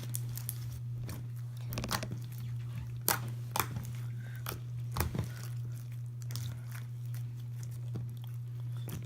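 Clear slime being squeezed and stretched by hand, giving scattered small wet pops and clicks at irregular intervals.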